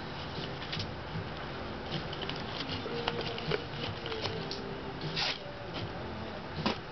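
Rustling and light clicking of a painted fabric-and-bamboo bird kite being handled as its parts are fitted together, with louder rustles about five seconds in and near the end.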